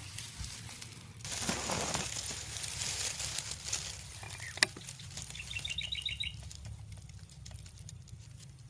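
Outdoor rustling, then a single sharp crack about four and a half seconds in, followed by a quick run of short, high bird chirps.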